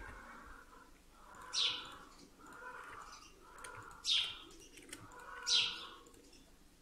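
A bird chirping: three short chirps falling in pitch, a second or two apart.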